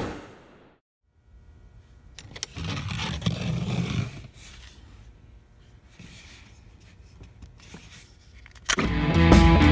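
Hands handling a Kydex knife sheath and its plastic belt clip on a tabletop: rubbing and sliding with scattered clicks, loudest about two to four seconds in. Shortly before the end, loud rock music with guitar comes in.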